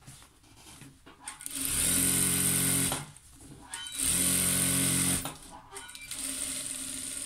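JACK industrial lockstitch sewing machine stitching a hem in two short runs of about a second each, with a brief pause between them as the cloth is repositioned.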